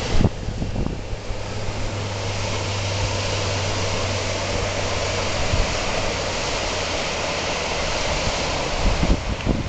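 Outboard motor of a small aluminium rescue boat running steadily as it travels across the floodwater. Under it is an even rush of wind and water, with wind buffeting the microphone at the start and again near the end.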